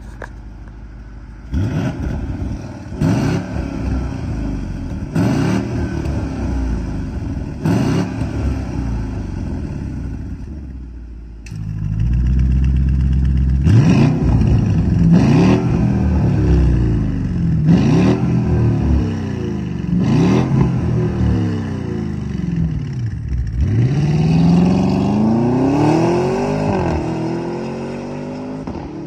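2021 Audi RSQ8's twin-turbo 4.0 V8 through an Akrapovic valved exhaust with VF Engineering tuning, revved in short sharp blips from idle. Four revs come with the exhaust valves closed. About twelve seconds in the valves open, and the idle is louder and deeper, with four more revs. Then one long rising pull as the SUV accelerates away, fading near the end.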